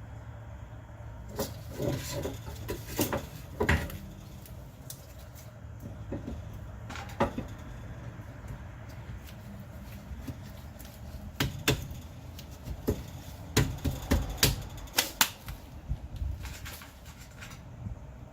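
Sharp metallic clicks and knocks of rear disc-brake parts and hand tools being handled during reassembly. They come in clusters: a few in the first seconds, one around seven seconds, then many through the second half, over a steady low hum.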